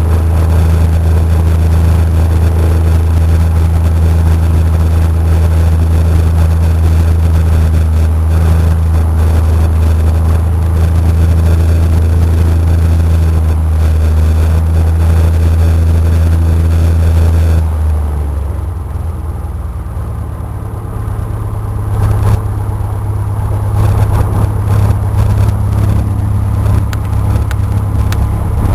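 Cessna 172's engine and propeller running steadily at high power. About 18 seconds in it is throttled back, the drone drops, and it settles into a lower, uneven running.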